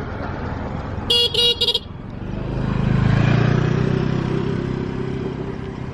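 A vehicle horn beeps three times in quick succession. Then a motor vehicle's engine passes close by, swelling to its loudest and slowly fading away.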